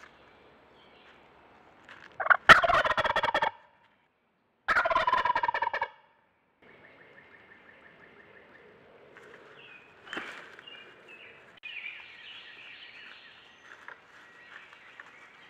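Wild turkey tom gobbling twice, each gobble a loud rattling call of about a second, the two about two seconds apart. After them come fainter small bird calls and a brief sharp click.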